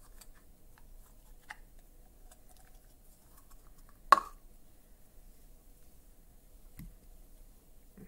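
Quiet handling of apples and modelling clay, with a few faint clicks, one sharp knock about four seconds in as a plastic Play-Doh tub is set down on a wooden table, and a soft thump a little before the end.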